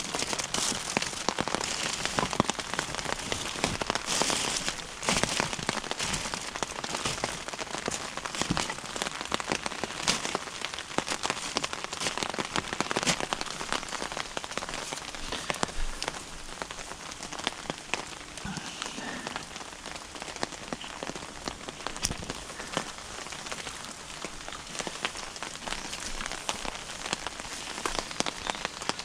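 Rain pattering steadily, a dense run of fine ticks with now and then a sharper tap.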